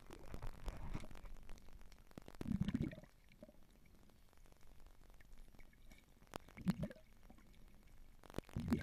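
Muffled underwater water noise: gurgles and sloshes in four short bursts, the loudest about two and a half seconds in, with a few faint clicks, heard by a camera under the water's surface.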